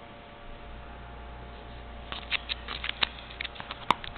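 Plastic binder pocket pages crackling and clicking as they are handled and turned, an irregular run of sharp ticks starting about halfway, with one sharper click near the end. A low steady hum runs underneath.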